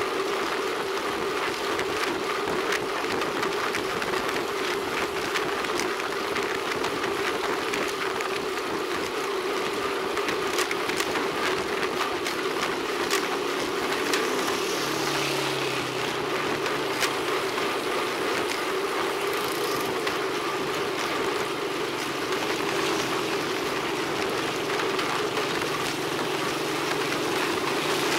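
Wind and tyre noise from a road bicycle rolling along a paved road, picked up by a camera mounted on the bike: a constant hum with scattered small clicks. A lower hum joins about halfway through.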